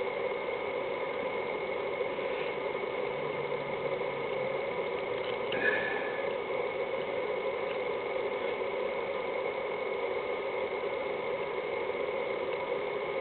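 Steady hum of a running machine with a thin high whine over it, unchanging throughout; a few faint small clicks.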